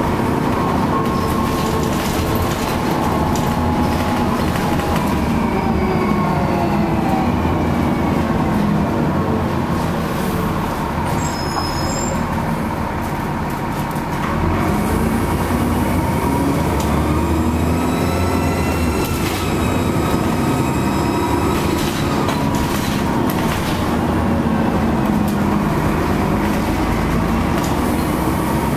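Dennis Trident double-decker bus heard from inside, its diesel engine running under load with a turbocharger whistle that rises and falls in pitch several times as the bus accelerates and eases off. The engine and transmission hum under it over road rumble, with scattered body rattles and knocks.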